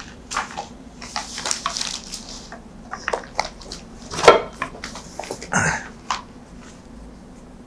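Papers being handled on a table and a bound volume picked up: paper rustling with scattered knocks, the loudest about four seconds in.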